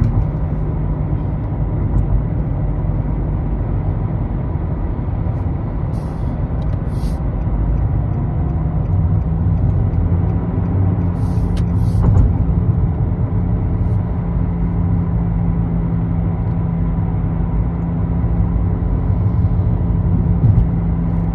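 Car driving at road speed: steady engine hum and tyre-and-wind rumble. Two faint pairs of short clicks come about six and twelve seconds in.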